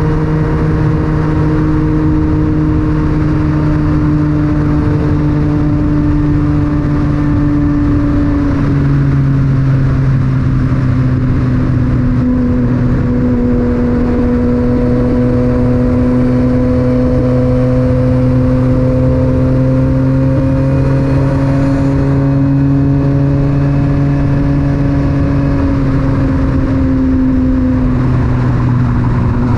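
Yamaha MT-09 inline three-cylinder engine breathing through an Akrapovic titanium exhaust, running at a steady cruise under light throttle, with wind rush on a helmet-mounted microphone. The engine note drops slightly about nine seconds in, then slowly climbs again.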